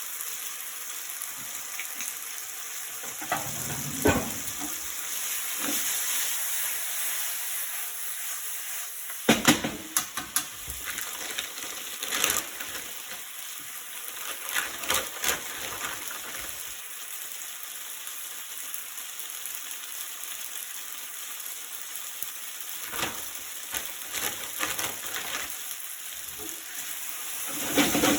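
Food sizzling steadily in a frying pan, with scattered knocks and scrapes of a utensil stirring it, clustered about ten seconds in and again near the end.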